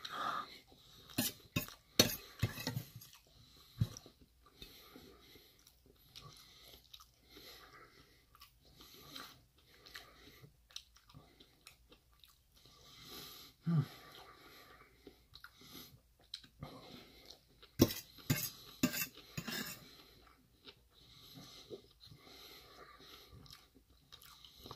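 Metal spoon clinking and scraping against a stainless steel bowl while scooping food, in two busy clusters at the start and about 18 seconds in, with quieter chewing of soft food in between.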